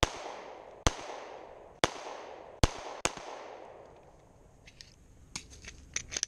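9mm Glock pistol fired five times at an uneven pace, each shot ringing out with a long echo through the trees. After the last shot there is a pause, then several lighter metallic clicks and clacks as the pistol is handled.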